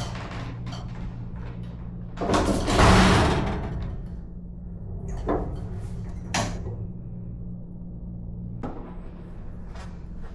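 Steel roller tool cabinet being handled: a loud scraping slide lasting about two seconds, followed by a few separate knocks, over a steady low hum.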